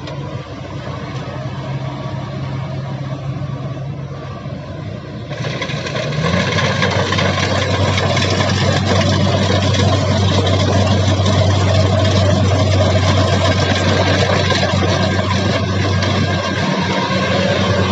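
Combine harvester engine running steadily, with dense mechanical noise from the machinery. About six seconds in, the engine note rises and the sound grows louder, then stays steady.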